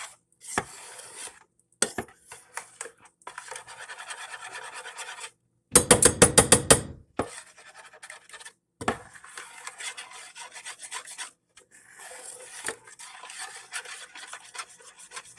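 A utensil stirring melting honey in a pot on the stove, scraping against the pan in quick, even strokes. There is a louder run of rapid strokes about six seconds in.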